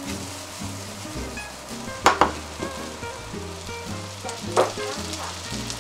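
Chicken tsukune meatballs sizzling steadily as they fry in plenty of rendered fat in a non-stick frying pan, with two sharp, louder clicks about two and a half seconds apart. Background music plays under it.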